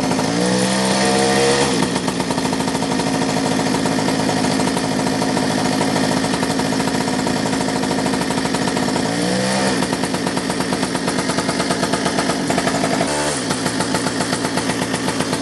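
Mini bike's small two-stroke engine running at a steady idle, its pitch swinging briefly near the start, about nine seconds in and again near the end. These dips are a faulty kill switch half-working without stopping the engine.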